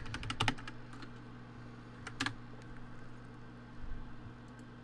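Typing on a computer keyboard: a quick run of key clicks, then a couple of single key presses, over a steady low hum.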